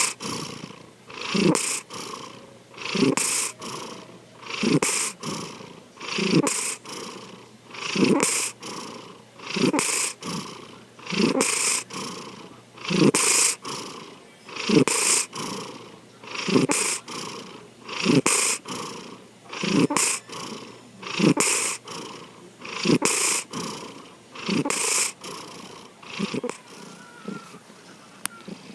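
Domestic cat snoring in its sleep: a raspy snore on each breath, about one every one and a half to two seconds, each carrying a short falling low note, a pigeon-like voice mixed into the snoring. The snores grow weaker near the end.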